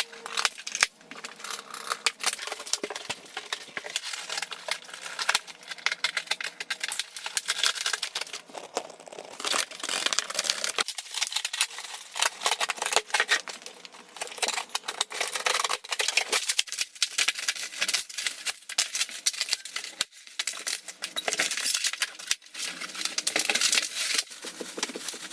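A large cardboard shipping box and its packing material being opened and handled: continuous crinkling, tearing and scraping with frequent small clicks and knocks.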